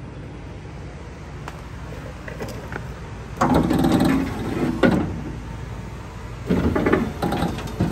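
New aftermarket electric power-window motor in a 1976 El Camino door driving the door glass fast, with a low motor hum and then two loud rattling, clattering runs about three and a half and six and a half seconds in. It goes so fast it sounds like it's breaking stuff.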